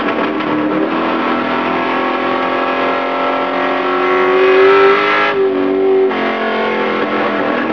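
Race truck engine heard from inside the cab, running hard at speed with its pitch climbing, then cutting back sharply about five seconds in as the throttle is lifted, and picking back up under a second later.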